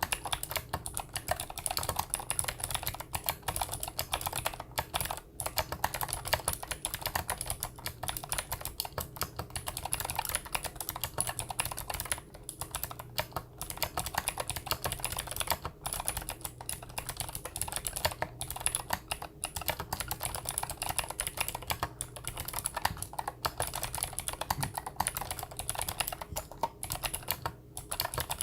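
Continuous fast typing on a mechanical keyboard with clicky Gateron Blue switches, dense sharp clicks broken by a few brief pauses.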